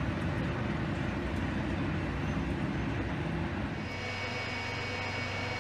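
Steady mechanical drone with a low rumble, from machinery on crane-testing footage. About four seconds in it drops to a quieter hum carrying a few steady high whining tones.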